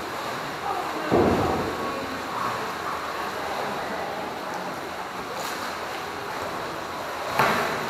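Pool water sloshing and splashing as a capsized kayak is handled and tipped in the water, with a louder splash about a second in and another near the end.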